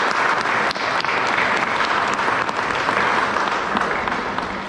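Congregation applauding, a dense clapping that begins to die away near the end.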